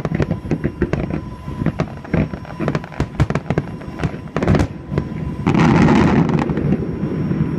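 Fireworks display: rapid, dense bangs and crackles of exploding shells, swelling into a louder, denser burst of about a second roughly five and a half seconds in.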